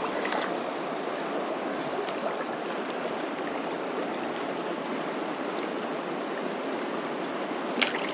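Fast river current rushing steadily over rocks. Near the end comes a short splash as the hooked mountain whitefish thrashes at the surface.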